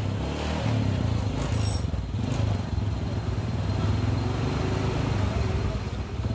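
Honda Supra Fit's small single-cylinder four-stroke engine idling steadily while its carburettor air screw and idle speed are being set.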